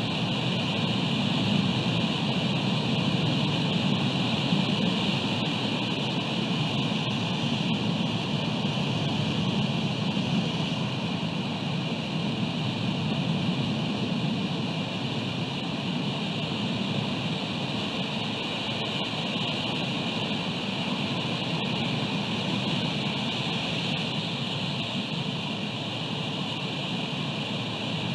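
Steady rushing noise of wind, rain and surf, unbroken and even in level throughout.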